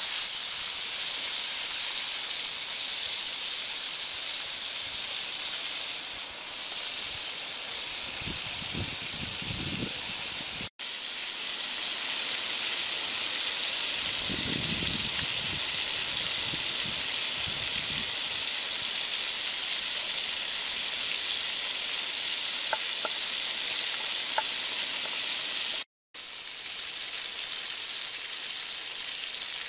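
Skewered whole shrimp deep-frying in hot oil in a wok, a steady sizzle that breaks off for a moment twice.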